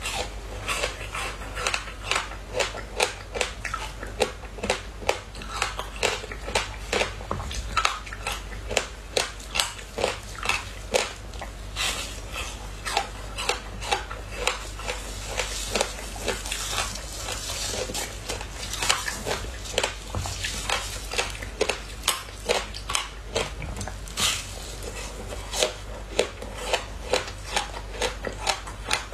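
Crunching and cracking of a brittle frozen sheet of passion fruit pulp and seeds as it is bitten and snapped apart by hand, sharp cracks following one another in quick succession.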